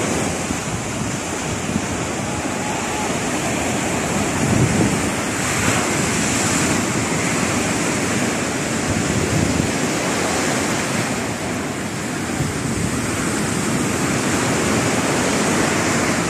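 Sea surf breaking and washing up a sandy beach, a steady wash that swells now and then as waves come in, with wind rumbling on the microphone.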